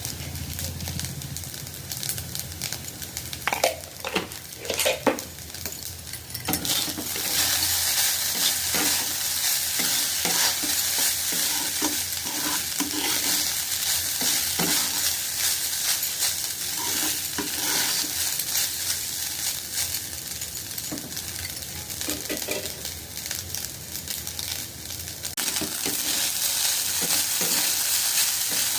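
Vegetable fried rice frying in a hot pan while being stirred with a spatula, with sharp scrapes in the first few seconds. About six seconds in the sizzling gets much louder and stays loud.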